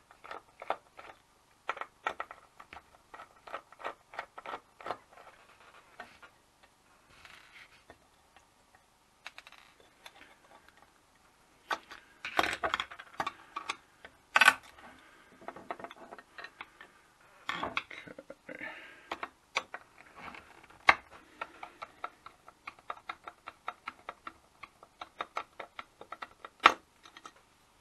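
Small metallic clicks and ticks from a precision Torx screwdriver turning out screws in a hard drive's actuator-arm assembly, with small metal parts being handled. The ticks come in irregular quick runs, with a few louder clacks about halfway through and near the end.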